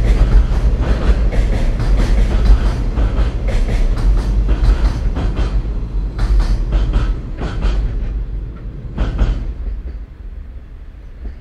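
Freight train container wagons rolling across a steel girder bridge, a heavy rumble with the wheels clacking over the rail joints. The last wagons pass about nine seconds in and the sound dies away.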